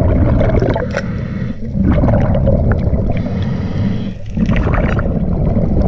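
Scuba diver breathing through a regulator underwater: a loud rush and bubbling of air, broken by two short pauses between breaths.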